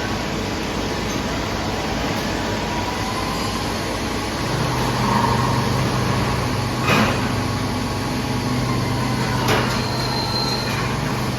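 Machinery running with a steady mechanical noise; a low hum comes in about four and a half seconds in, and two sharp clicks sound later on.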